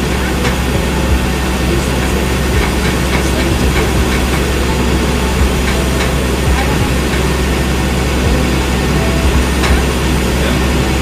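Flatbed tow truck's engine idling steadily, with a few faint knocks scattered through.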